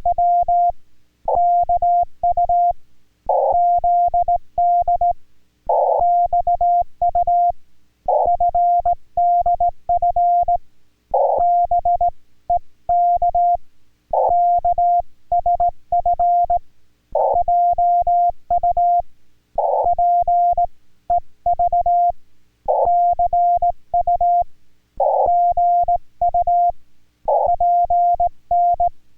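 Morse code (CW) from an amateur radio transceiver: a single mid-pitched tone keyed on and off in dots and dashes of Korean Morse code, sent in groups with short pauses between them. A faint low click comes with each element.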